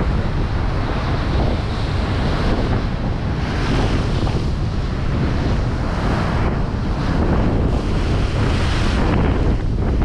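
Gale-force wind buffeting the microphone with a heavy, constant rumble, over rough North Sea waves breaking and rushing in surges every few seconds.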